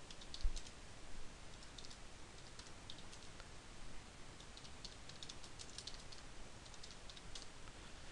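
Keystrokes on a computer keyboard, typed in irregular runs, with one low thump about half a second in.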